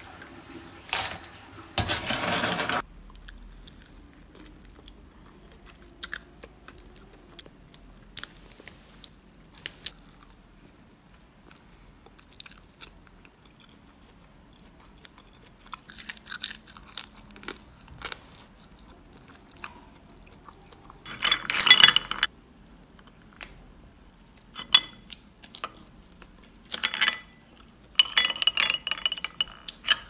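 Cooked mantis shrimp being eaten: shells crunching and cracking under teeth and fingers in short scattered bursts, with sharp clicks. Near the start, about a second of scraping and rattling as a spatula stirs shrimp in a wok.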